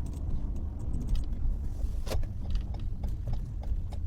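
Low, steady rumble of a car heard from inside the cabin, with a sharp crack about two seconds in and a few light clicks after it.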